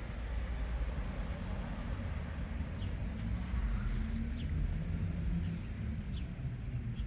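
Outdoor ambience: a steady low rumble with a few faint, short, falling bird chirps.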